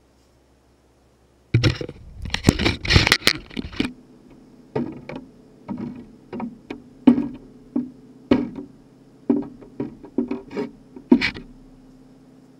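Unglazed clay mugs being picked up and set down on a work table: a burst of clatter, then single knocks every half second or so, over a faint steady hum.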